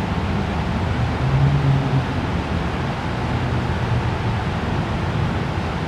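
Citroen Saxo 1.6 8V's four-cylinder petrol engine running at idle through its exhaust, with a slight rise in revs about a second and a half in.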